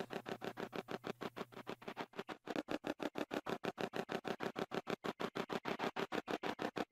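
Spirit box app sweeping: a fast, even chopping of short hissy bursts, about six a second, with faint tones caught in them. It grows a little louder about two and a half seconds in.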